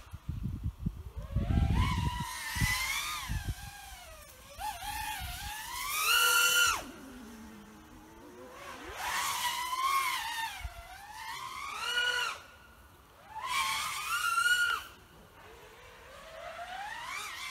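FPV quadcopter's brushless motors whining, the pitch rising and falling with the throttle in several surges, each climbing to a high whine and then cutting back; the loudest surges come about six seconds in and near the end of the second quarter-minute mark, around fourteen seconds in. A low rumble and crackle sits under the first few seconds.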